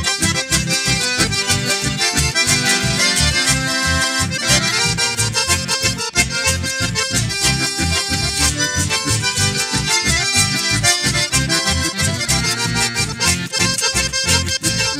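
Live band music led by accordions, played as an instrumental passage with guitar and a steady, pulsing bass beat underneath.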